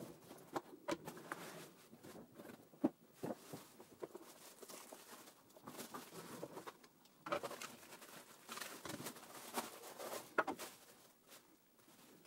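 Unboxing a plastic mandoline slicer: bubble wrap and packaging crinkling and rustling, with irregular light clicks and taps as the plastic parts are handled and set down. The rustling is busiest a little past the middle.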